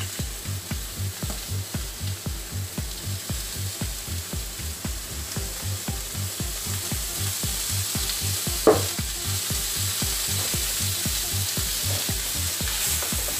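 Raw chicken fillets sizzling in oil in a frying pan, with a regular low pulsing underneath about two to three times a second. A single sharp knock about nine seconds in.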